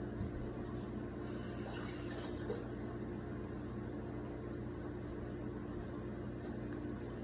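Kitchen tap running steadily as something is rinsed under it.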